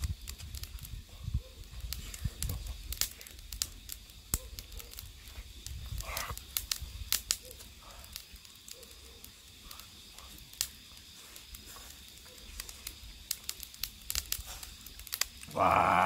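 Gizzard shad grilling on a wire rack over charcoal: irregular sharp crackles and pops, the fish fat spitting on the hot coals.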